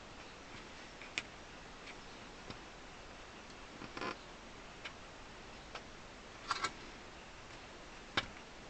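Faint steady room hiss with a handful of small, irregularly spaced clicks and taps, from fingers pressing a freshly super-glued celluloid patch onto an accordion's grille.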